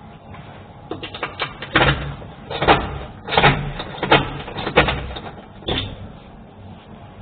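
A run of about nine irregular sharp knocks and clatters, starting about a second in and stopping a little before the end, over a faint steady background hum.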